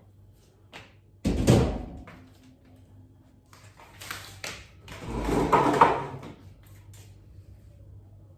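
Kitchen clatter while cleaning: a sharp knock about a second in, like a cupboard or drawer being shut, then a longer bout of clattering and rustling a few seconds later.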